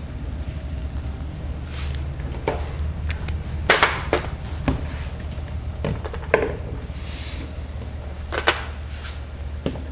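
Whiteboard marker and magnetic boat pieces knocking against a whiteboard and its tray: a string of separate sharp clacks, the loudest a little under four seconds in, over a steady low hum.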